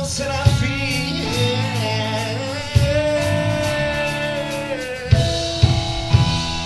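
Live rock band playing, with a singer holding long sung notes over guitar and bass and sharp drum hits, three of them close together near the end.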